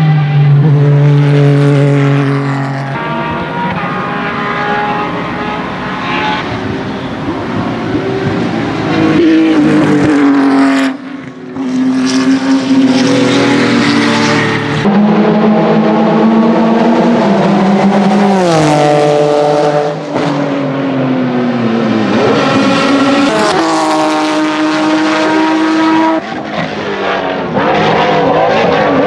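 Porsche 996 GT3 RS and RSR race cars' 3.6-litre flat-six engines at high revs, downshifting and accelerating as they pass, the engine note sliding up and down. Several passes follow one another, the sound changing abruptly between them.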